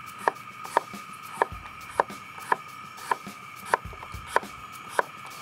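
A knife slicing an apple thinly on a cutting board, the blade knocking on the board in an even rhythm, about every half second.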